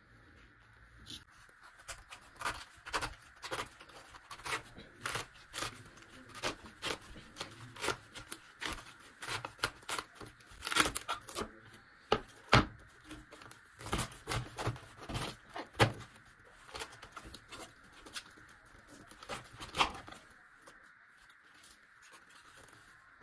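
Knife cutting through a raw red cabbage: dense, irregular crisp crunching and crackling as the blade splits the tightly packed leaves, with a few sharper knocks as the knife meets the cutting board. It runs from about a second in and stops a few seconds before the end.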